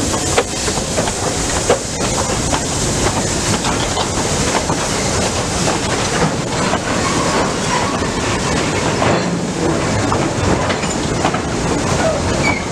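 Goods wagons of a heritage train rolling past at close range: steady rumble of steel wheels with a rapid clatter of clicks over the rail joints.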